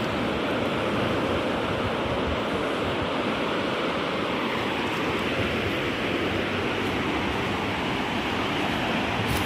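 Ocean surf washing on the beach: a steady, even rush with no distinct waves or breaks standing out.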